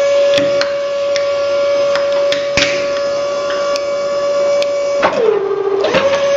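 Hydraulic press pump running with a steady high whine as the ram lowers onto a plastic toy car, with scattered sharp clicks. About five seconds in the whine dips lower in pitch for under a second, then comes back up.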